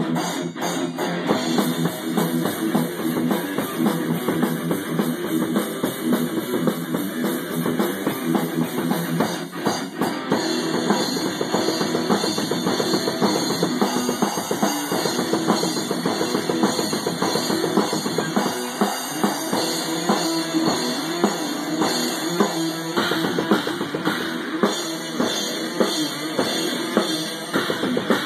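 A rock drum kit with Zildjian cymbals is played in a steady beat alongside an electric guitar through a small amplifier. It is a band rehearsing a new song.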